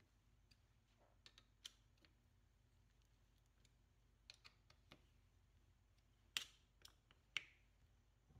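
Faint, scattered light metallic clicks and taps from fitting the retaining screws into a differential carrier housing with a hex key. The two sharpest come near the end, about a second apart.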